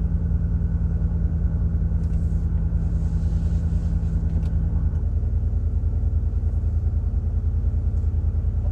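2002 Cadillac DeVille's 4.6-litre Northstar V8 heard from inside the cabin through a Thrush welded performance exhaust with the resonator deleted: a steady, low, pulsing exhaust drone. A steady hum over it stops about five seconds in.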